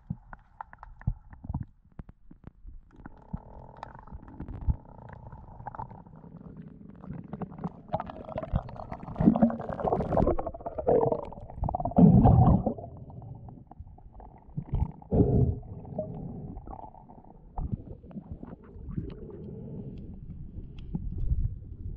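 Muffled rumbling and bubbling of water around an underwater camera as a spearfishing diver swims, with uneven swells and scattered knocks, loudest about halfway through.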